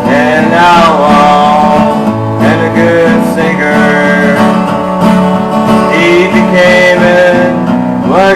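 Acoustic guitar played live in the instrumental opening of a song, with some sliding, gliding notes over a steady strummed bass.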